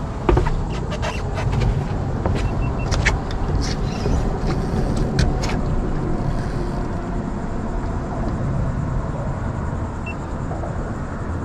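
Steady low rumble of traffic on the road bridge overhead, with scattered sharp clicks and knocks in the first half as a spinning rod and reel are worked against a hooked fish.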